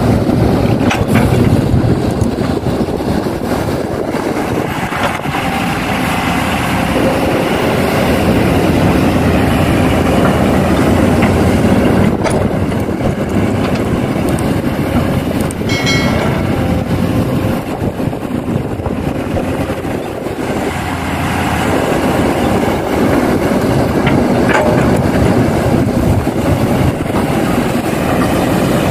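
Kobelco hydraulic excavator's diesel engine running steadily under load while digging and loading earth into dump trucks, with a few sharp knocks and a brief higher-pitched tone about 16 seconds in.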